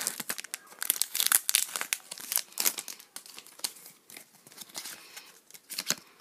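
Foil wrapper of a Pokémon trading-card booster pack crinkling and crackling as the torn-open pack is handled and the cards are slid out. The crackling is dense for the first three seconds, then thins to scattered crinkles, with a last burst near the end.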